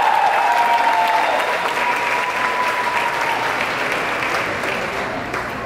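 Audience clapping and cheering after a high school band's performance, with a single held high note fading out about three seconds in.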